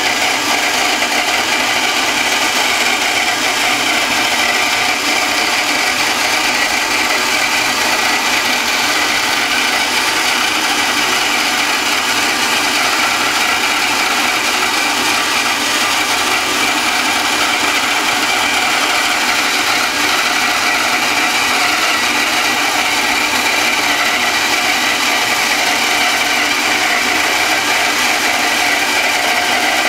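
Bandsaw running with its blade resawing a board on edge against the fence into a 3/8-inch veneer. Steady, even cutting noise at a slow, constant feed.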